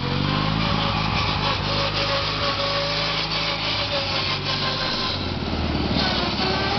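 Montgomery Ward lawn tractor's 14 hp V-twin engine running steadily under load as it drives over gravel, with a gritty crunching from the tyres mixed in.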